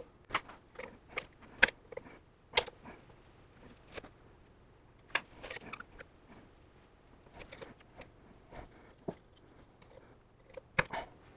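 Scattered, irregular clicks and scrapes as a small flat-bladed screwdriver and pick work at the metal retaining clip that holds the reservoir onto a power steering pump, prying the clip loose.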